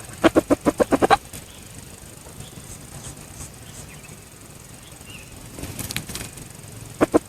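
Red junglefowl sounds: a fast run of about eight short, sharp pulses in the first second, a brief rustle later, and two more quick pulses near the end.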